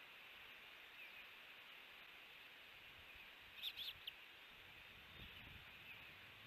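Osprey chirping: three short, high chirps a little past halfway, over a faint steady outdoor hiss.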